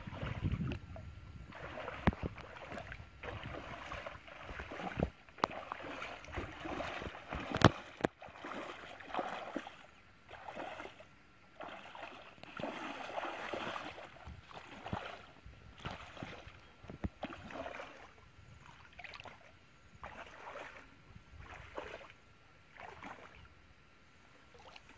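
Shallow muddy paddy water splashing and sloshing in irregular bursts as a person wades and grabs fish by hand, with one sharper splash or knock about seven to eight seconds in.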